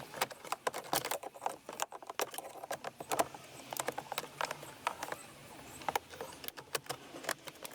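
Irregular light clicks, taps and rattles of hands handling plastic parts, consistent with working the cabin air filter and its housing behind the glovebox.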